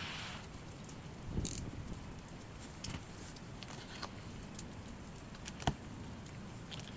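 Dry firewood burning, with a steady hiss and a few scattered sharp crackles and pops.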